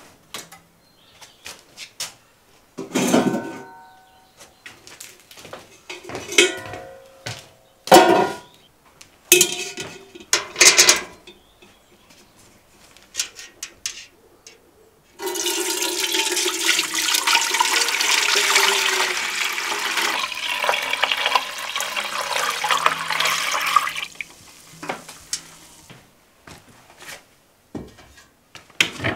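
Clinks and knocks of kitchenware being handled, some ringing briefly, then water pouring steadily into a vessel for about nine seconds from about halfway through, followed by a few faint knocks.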